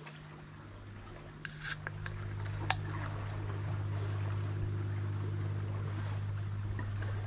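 A boat's engine running with a steady low drone, growing louder about a second and a half in and then holding. A few short sharp clicks and taps come over it in the first few seconds.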